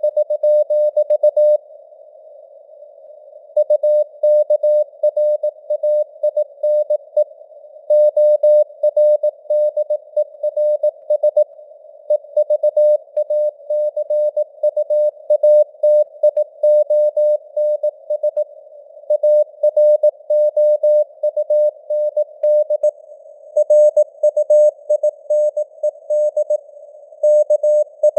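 Morse code (CW) sent at 18 words per minute as a single steady tone keyed in dots and dashes, with short pauses between words. Under it is a hiss of simulated radio receiver noise, and the signal strength varies as in QSB fading.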